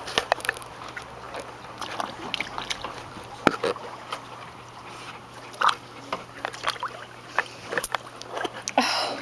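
Pool water sloshing, with scattered small clicks and knocks, heard muffled through a camera held under the water of an above-ground pool. A louder rush of noise comes near the end.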